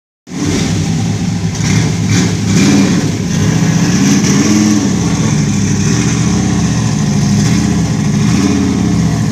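1972 Dodge Demon's 340 small-block V8 running loud through its exhaust at idle, its pitch wavering up and down with brief small rises about two and four and a half seconds in.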